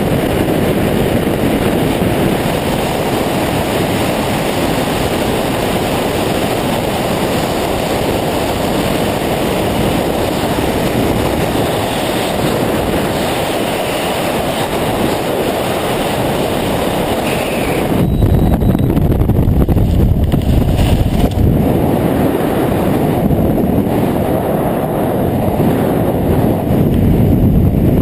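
Freefall wind rushing over a skydiver's camera microphone, a loud steady roar. About 18 s in it changes abruptly, losing its higher hiss and turning into a heavier, lower buffeting.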